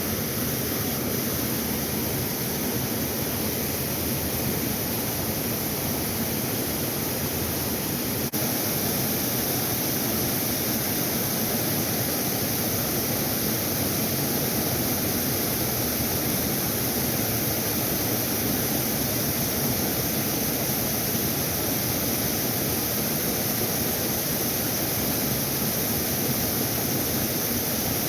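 Creek water rushing steadily, an even rushing noise with no letup, broken only by a brief click about eight seconds in.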